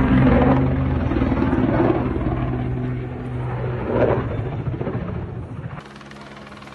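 ATR 72 twin-turboprop airliner's engines and propellers droning overhead as it falls in a flat spin after a stall. The drone is loud and noisy and fades a little. About six seconds in it changes abruptly to a quieter, steady hum.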